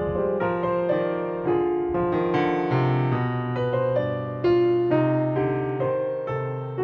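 Background piano music: a slow melody of struck notes over sustained low notes.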